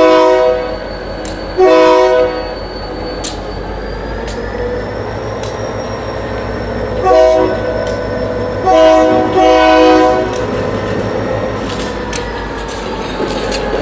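Southern Ontario Railway diesel locomotive sounding its horn at a grade crossing: two long blasts, a long pause, then a short blast and a long one, the long-long-short-long crossing signal. Its diesel engine rumbles steadily underneath, with scattered clanks from the train.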